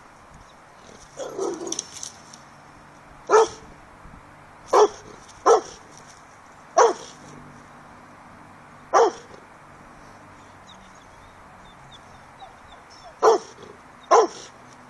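Dog barking at a deer through a fence: about seven sharp single barks at uneven intervals, a second or several apart, after a longer, rougher sound about a second in.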